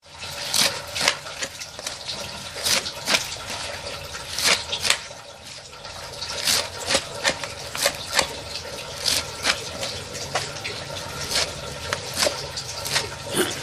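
Knife chopping leafy greens on an aluminium tray: sharp taps of the blade through the leaves onto the metal, uneven, about two to three a second.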